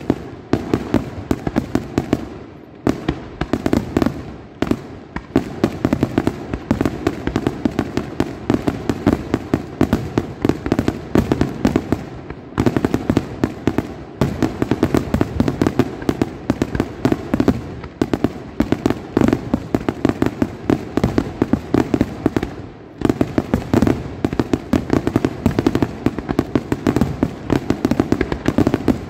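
Fireworks display: aerial shells launching and bursting in rapid, near-continuous volleys of bangs, with brief lulls about 3, 12 and 23 seconds in.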